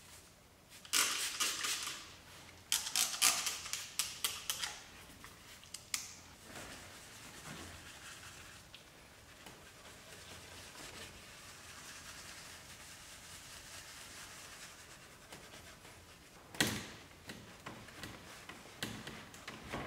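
Interior cleaner sprayed from a trigger spray bottle in several quick bursts onto a leather armrest. A brush then scrubs the foamed cleaner into the leather with a soft, steady rubbing, and a sharp burst comes near the end.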